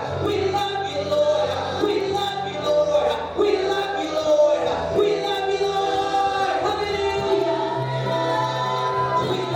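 Gospel singing by a group of voices, with long held notes over a steady low accompaniment.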